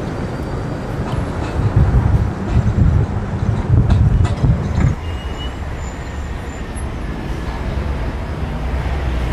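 Car driving: a steady road and engine rumble that swells louder between about two and five seconds in, then settles.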